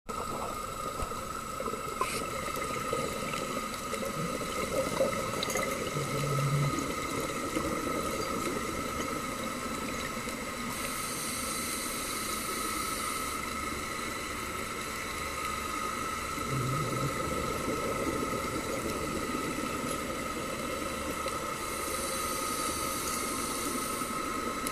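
Scuba diver breathing through a regulator underwater: bubbling exhalations alternating with hissing breaths in, twice over, about every 11 seconds. A steady high tone runs underneath.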